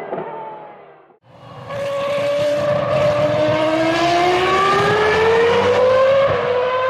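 Ferrari SF70H Formula 1 car's turbocharged V6 fades away with falling pitch in the first second. After a brief gap the engine comes back accelerating, its pitch climbing steadily for about five seconds, with a short dip in pitch near the end.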